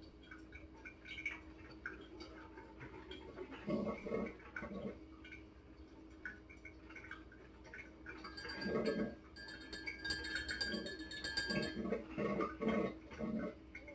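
Chocolate syrup squeeze bottle squirting into a glass in several short, sputtering spurts, most of them in the second half, with light clinks of glass.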